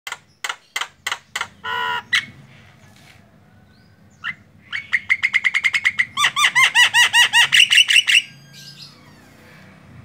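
Male Javan myna singing: a run of short sharp notes and one longer harsh note in the first two seconds, then after a pause a fast string of repeated notes with falling whistles, growing louder and stopping about eight seconds in.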